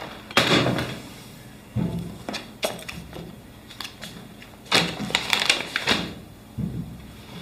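Desk handling sounds: a series of knocks, clunks and rustles. The loudest come about half a second in and again in a busy cluster around five seconds in.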